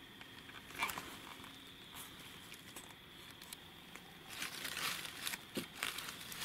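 Footsteps crunching and rustling through dry fallen leaves, sparse and faint at first, then a steady run of louder crunching steps from about four seconds in.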